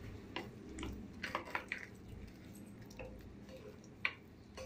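Steel spoon stirring a thick rice-flour and water paste in a ceramic bowl: soft squishing broken by a few short clicks of the spoon against the bowl, the loudest about four seconds in.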